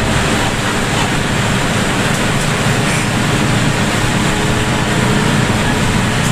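Steady noise inside a bus cruising on a wet highway in heavy rain: the engine running, tyres hissing on the wet road, and rain on the bus.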